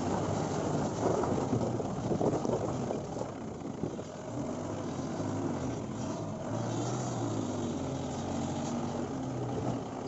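4x4 vehicle crawling over a rocky dirt track: the engine runs steadily in low gear while the tyres crunch over loose stones.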